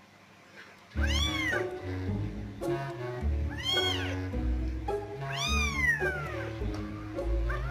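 A young kitten mewing loudly, three rising-and-falling cries a couple of seconds apart and a fourth beginning near the end: a kitten left out of the nest crying for its mother. Background music with a bass line starts about a second in.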